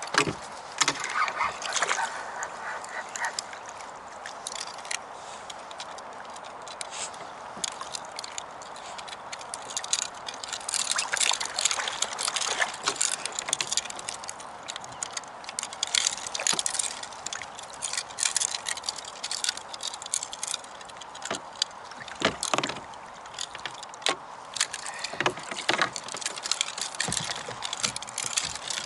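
Water sloshing and splashing around a fishing kayak's hull, with many short, irregular splashes and knocks that come thicker from about ten seconds in.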